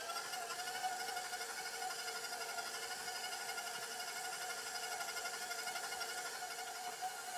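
Stand mixer motor running at a steady speed with an even whine, its attachment kneading egg into sticky bread dough in a metal bowl.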